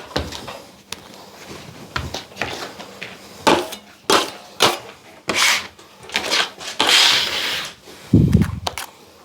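Drywall knife scraping and spreading setting-type compound (cornice cement) into a ceiling patch: irregular scraping strokes of the blade on the plaster, with a short dull low bump near the end.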